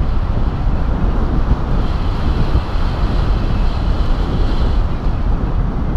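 Wind from the airflow of a paraglider in flight rushing over the camera microphone: a steady, loud rumble of wind noise.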